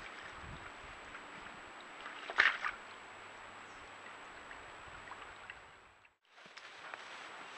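A deer lying in a muddy wallow sloshes the water once, about two and a half seconds in, over the steady hiss of a trail camera's microphone.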